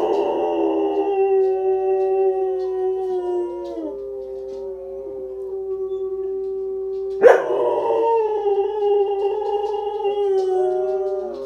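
Dog howling in long, drawn-out howls, with a second howl starting loudly about seven seconds in. A quieter steady tone carries on between the howls.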